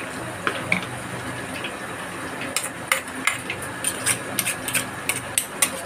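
Hot oil sizzling steadily in a steel wok as vegetable fritters deep-fry, with a metal ladle clinking against a steel bowl of batter in a quick run of sharp clinks over the last three seconds.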